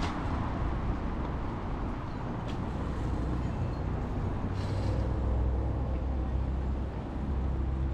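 City street traffic: a steady low rumble of a nearby motor vehicle's engine over road noise, with a faint click and a brief hiss about halfway through.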